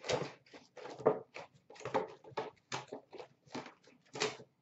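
Cardboard trading-card box being torn apart by hand: a quick, uneven series of about ten short rips.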